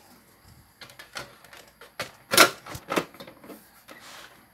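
Metal top cover of a cassette deck being put back on by hand: a series of irregular clicks and knocks, the loudest about two and a half seconds in.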